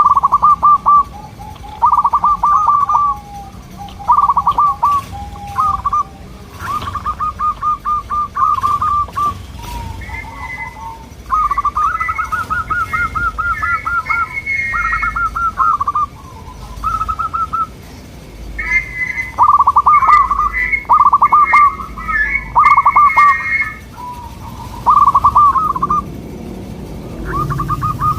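Zebra doves cooing: repeated short phrases of fast, rolling coos, one after another, with a second, higher-pitched dove calling over the first through much of the middle, the birds answering each other.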